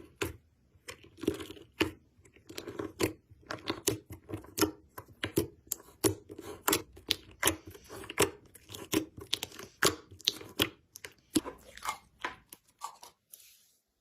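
Slime being squeezed and pressed by hand, giving a dense run of sharp crackling pops and clicks over soft squelches.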